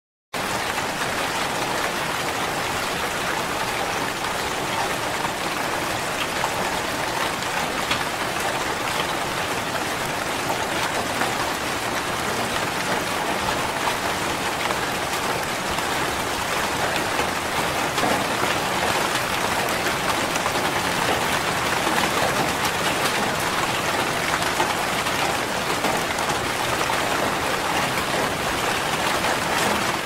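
Steady rain falling: an even hiss of rain with faint scattered drop ticks, starting suddenly just after the beginning.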